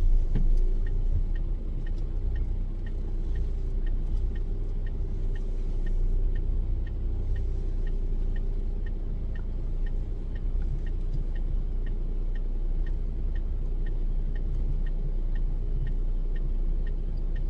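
Inside a Renault truck's cab: the diesel engine running steadily at low road speed, with a regular fast ticking, a few ticks a second, typical of the turn-signal indicator.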